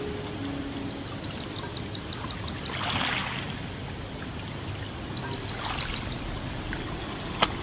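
Bird trill in a background music track: a rapid run of about ten high chirps starting about a second in, and a shorter run around five seconds in, over a soft steady hiss.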